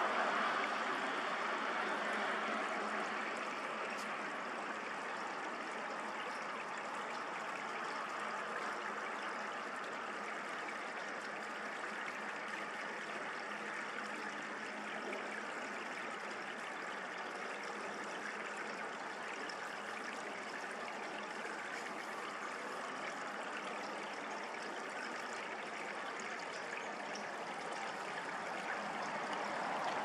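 Steady, unbroken rush of flowing water.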